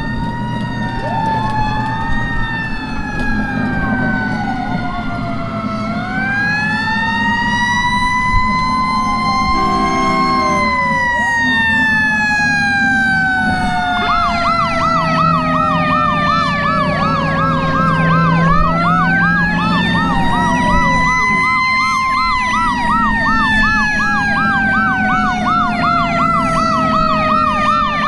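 Several fire engine sirens sounding together: slow wailing sirens winding up and coasting down in long glides, joined about halfway through by a fast yelping siren for several seconds. A brief horn blast sounds about a third of the way in, over the steady running of a truck engine.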